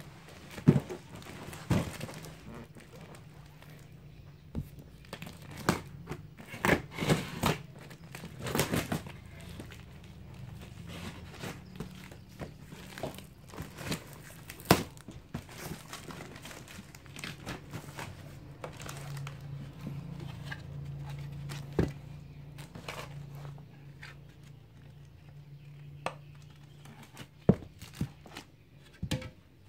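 Packing tape and cardboard flaps being ripped and torn off a large cardboard box, in short rasping tears with knocks and clicks, then crinkling plastic bags as toys inside are handled. A low steady hum runs underneath.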